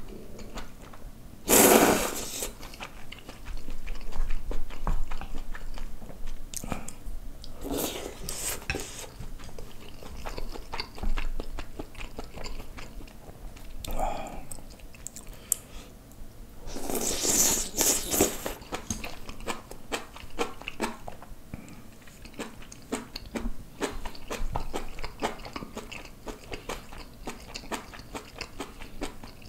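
Close-miked eating: a person chewing and biting braised kimchi, pork belly and noodles, with many small wet clicks and crunches. Loud slurps come about two seconds in and again around seventeen seconds.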